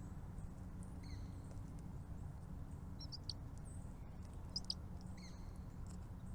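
Small birds giving short, high chirps in brief clusters, over a steady low background hum.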